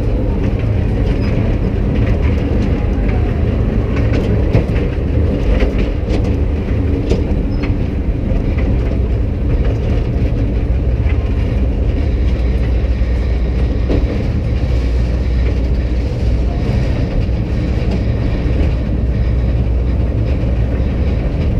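Small fairground kiddie train ride running along its track, heard from a seat in one of its cars: a steady low rumble with frequent short clicks and rattles from the wheels and car.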